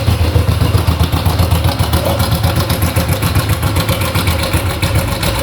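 Honda Biz 100's single-cylinder four-stroke engine idling with a loud, shrill, evenly paced rattle of little clicks from inside the engine. The cam chain and its tensioner are knocking.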